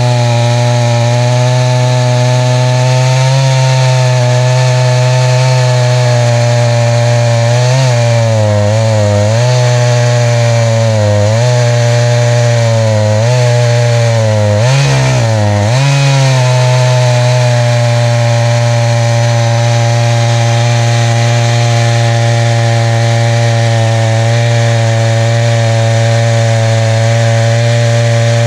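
Echo CS590 Timberwolf two-stroke chainsaw running at high throttle, ripping lengthwise through a black ash log on a chainsaw mill. The engine note is steady, dipping and recovering several times in the middle as the cut loads it down.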